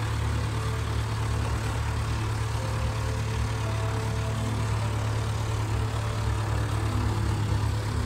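David Brown 990 tractor's four-cylinder diesel engine running steadily with a low, even note while the tractor drives along, heard from inside the cab.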